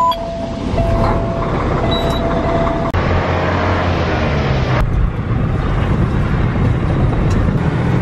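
Semi truck's diesel engine running after the key is turned, with a dash warning tone sounding on and off for the first few seconds. The engine's low rumble then grows stronger and the truck is heard running and driving from inside the cab.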